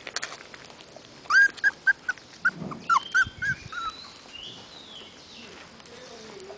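Puppy yipping: a quick run of about ten short, high-pitched yips, starting a little over a second in and lasting about two and a half seconds.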